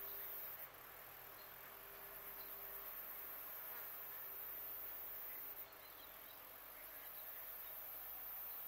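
Faint steady hum of a flying insect buzzing, which stops about five and a half seconds in, over a steady outdoor hiss.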